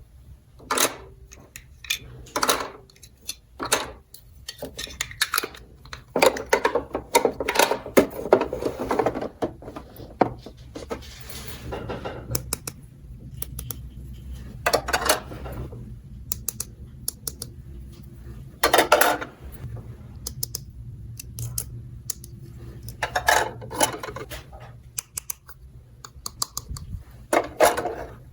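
Hard plastic toy dollhouse pieces handled and set down: irregular clicks, taps and small clatters, with a denser stretch of rustling and clattering about six to ten seconds in.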